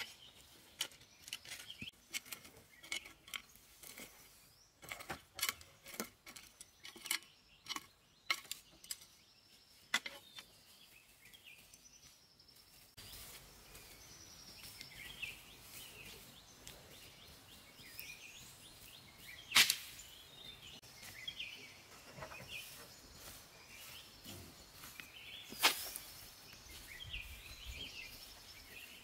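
A hoe chopping and scraping into dry garden soil, with many quick, irregular strikes. About halfway through these give way to soft scraping of soil by hand, with faint bird chirps and two sharp clicks a few seconds apart.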